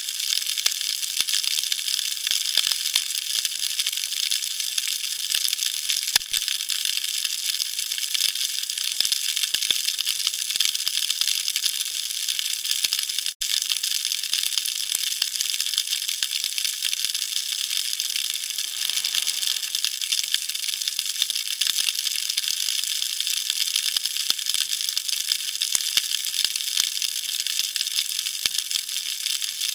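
Underwater crackle of snapping shrimp on a Hawaiian reef: a dense, steady bed of tiny clicks and pops, with a faint low hum underneath.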